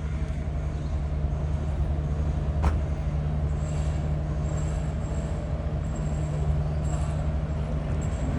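Melbourne Metro electric suburban train running with a steady low hum, with a single sharp click a little under three seconds in and a faint high whine coming and going in the second half.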